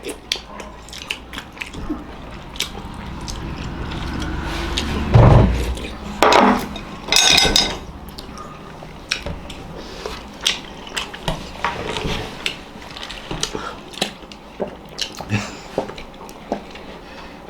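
Chopsticks clicking and tapping against plates while people eat, many short sharp clicks scattered throughout, with a few louder bursts of noise near the middle.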